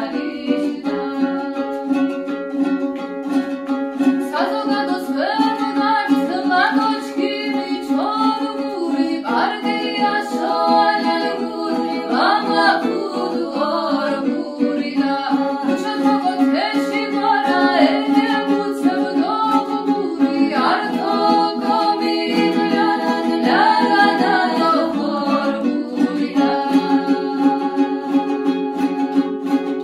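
Two women singing a Georgian folk song to a plucked chonguri, the four-stringed Georgian lute, with a steady held drone under the shifting vocal lines.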